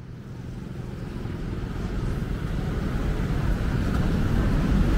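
City street traffic, a steady rumble of passing vehicles, fading in and growing louder over the first few seconds.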